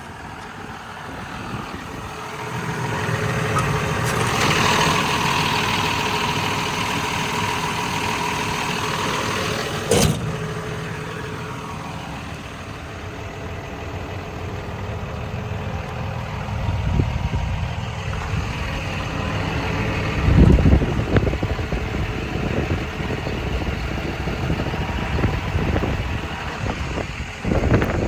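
John Deere 210G LC excavator's diesel engine running steadily. It grows louder about three seconds in and eases back after about ten seconds. A sharp click comes near the middle and a heavier thump later.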